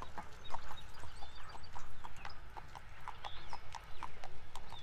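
Horse hooves clip-clopping steadily on a hard road, about four beats a second, with a low rumble underneath and a few faint bird chirps.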